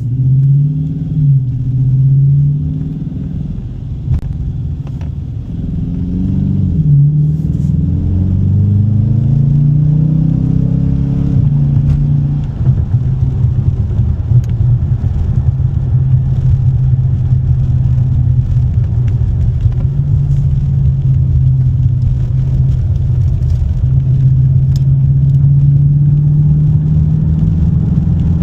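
Dodge Challenger R/T's 5.7-litre HEMI V8, breathing through a K&N drop-in air filter, accelerating under way. Its pitch rises and falls several times for the first dozen seconds, then settles into a steady drone.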